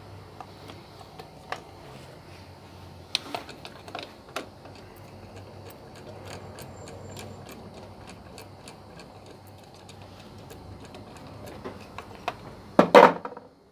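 Light metallic clicks and ticks of a screwdriver and small parts being worked on a pump motor's terminal board and wiring, about two or three a second, with a louder handling clatter near the end.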